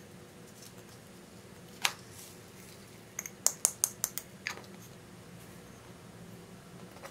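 Small plastic tube of foam beads opened and shaken out by hand: one sharp click about two seconds in, then a quick run of clicks and taps a second later as the beads are tipped out onto the slime.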